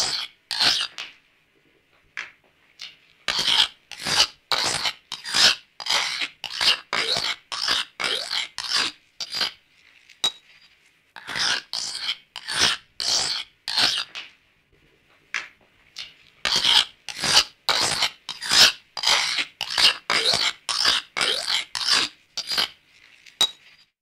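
A knife being sharpened: quick rasping strokes of the blade, about two a second, in runs broken by short pauses.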